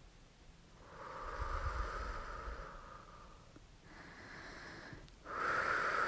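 Breathy whooshing noise in three long swells: one about a second in lasting a couple of seconds, a fainter one near four seconds, and a louder one starting near the end.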